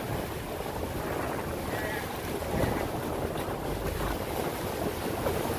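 Large steel barge moving past close by, with water rushing and churning along its hull in the fast current below the sluice gate and a low, steady engine rumble underneath.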